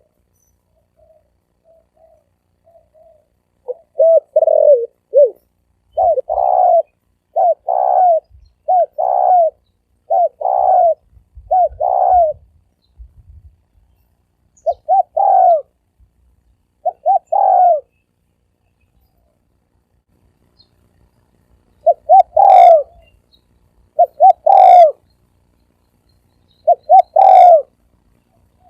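Male spotted dove cooing in a deep, resonant voice: repeated phrases of short, loud coos, with a pause of a few seconds past the middle.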